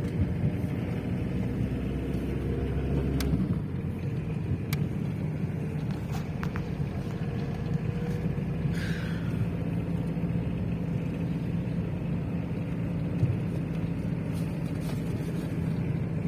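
A motor vehicle running: a steady low rumble with a held hum, whose deepest part eases slightly a few seconds in.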